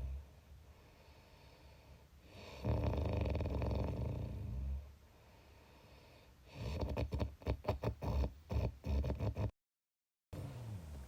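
A person snoring: one drawn-out snore about three seconds in, then a run of short, choppy snorts. The sound cuts out completely for under a second near the end.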